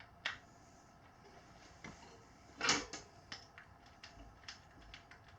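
Scattered light clicks and knocks of hands and tools handling a dirt-bike wheel, tire and tube, the loudest knock a little past the middle, over a faint steady hum.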